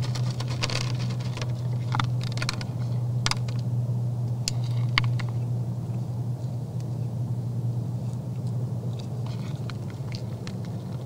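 Whitetail bucks feeding from a metal feeder pan: crisp crunching and clicking as they eat, dense for the first few seconds, easing off in the middle and picking up again near the end. A steady low hum runs underneath.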